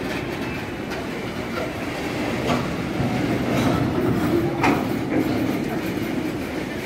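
Freight train of BTPN bogie tank wagons rolling past close by: a steady rumble of steel wheels on rail with clicks from the rail joints. Two brief, sharper metallic noises come about two and a half and four and a half seconds in.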